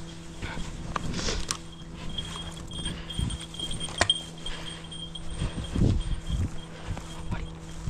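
Footsteps through dry grass with light metallic jingling and a steady low hum, and a sharp click about four seconds in.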